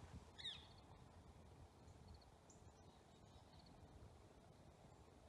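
Near silence outdoors, broken about half a second in by one brief, falling bird call. Faint, short, high chirps recur every second or two.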